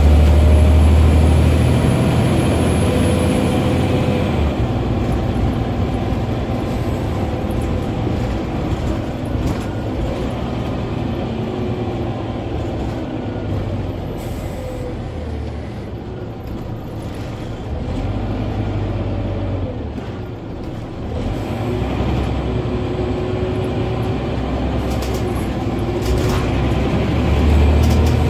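Scania N94UB OmniCity bus's rear-mounted diesel engine and drivetrain heard from inside the saloon while under way, pulling harder near the start, around two-thirds through and again near the end. Faint whines rise and fall in pitch over the steady running.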